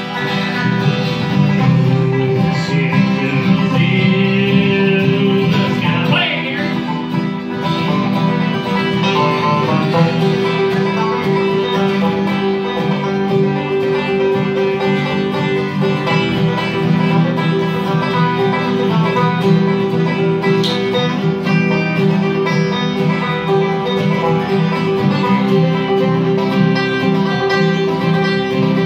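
Live acoustic bluegrass played by a string band: strummed acoustic guitars, a five-string banjo and a resonator guitar (dobro) playing together at a steady tempo.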